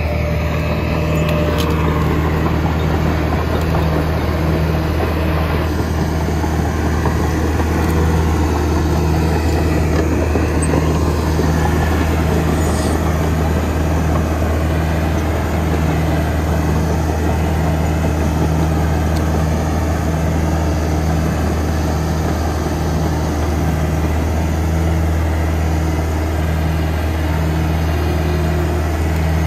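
Turbocharged diesel engine of a track loader running steadily while it works clearing ground.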